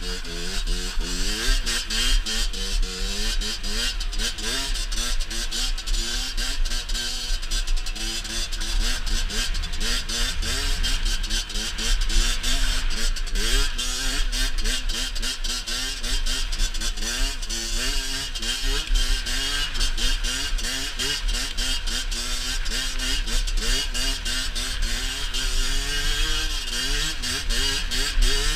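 Rieju MRT SM supermoto's engine running under riding load, revving up and down repeatedly as the throttle is worked. Its exhaust has no restrictor plug. Heavy low wind rumble on the microphone.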